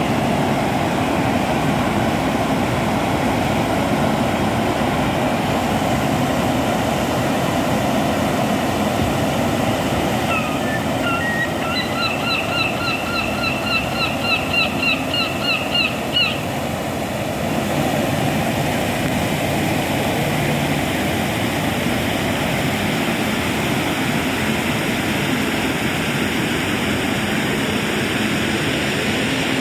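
Swollen, muddy brook rushing steadily over low stone weirs. Near the middle, a rapid run of short high notes repeats about four times a second for some five seconds over the water.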